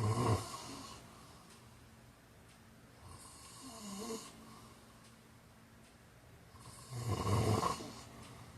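A sleeping person snoring: a loud snore at the start and another about seven seconds in, with a softer, hissing breath between them about three to four seconds in.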